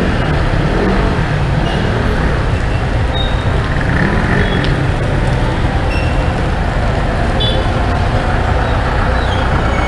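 Ride-along sound of a motorcycle moving through city traffic on rain-wet streets: the bike and surrounding vehicles give a steady, loud rumble and road noise, with a few short high-pitched tones in between.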